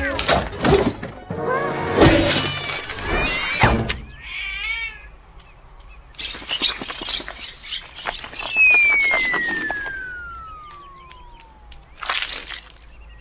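Comedy sound effects over music, with a string of sharp hits in the first few seconds. Late on comes a long, falling whistle lasting about three and a half seconds, ended by a sudden splat.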